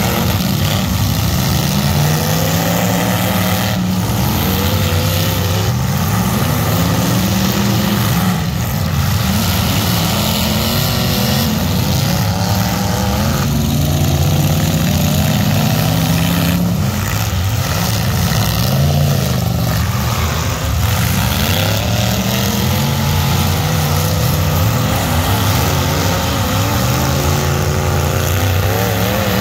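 Several demolition-derby pickup truck engines running and revving at once, their pitches rising and falling as the trucks accelerate and back off, with a few knocks along the way.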